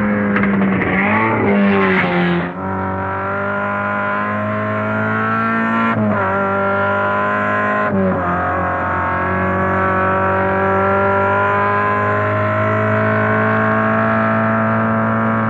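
Racing car engine under hard acceleration, its note climbing and then dropping sharply at each upshift, about two and a half, six and eight seconds in, before holding a steady high pitch. The first couple of seconds are rougher, with the pitch wavering.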